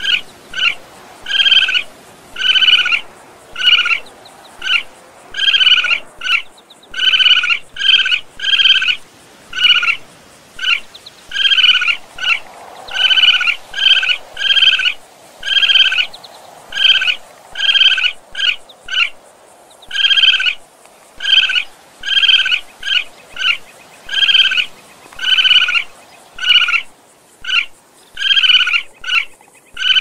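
Animal calls: a short, high-pitched call repeated steadily, about two every second.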